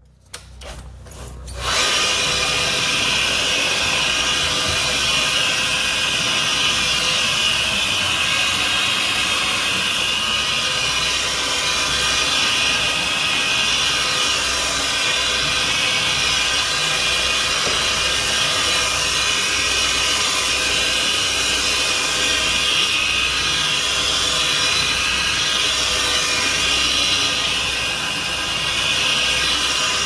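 Upright vacuum cleaner switching on just under two seconds in, then running steadily with a high motor whine as it is pushed over carpet.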